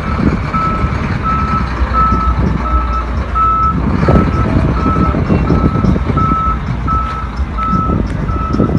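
Diesel heavy construction machine running with its reversing alarm beeping steadily, about three beeps every two seconds, over the low engine rumble; a louder knock about four seconds in.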